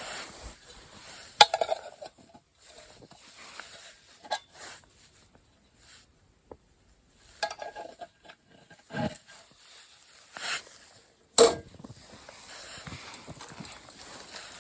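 Irregular clinks, knocks and rustles of objects being handled, in short bursts separated by silent gaps. The sharpest knocks come about one and a half seconds in and near eleven and a half seconds.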